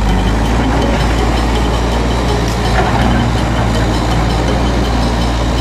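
Caterpillar 312B excavator's diesel engine running steadily as the machine works.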